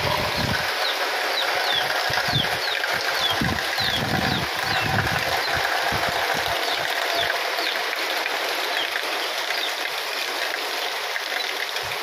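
Heavy tropical rain pouring steadily, a dense hiss, with wind gusts buffeting the microphone, mostly in the first few seconds. A few short, high, falling chirps from a bird come through the rain in the first half.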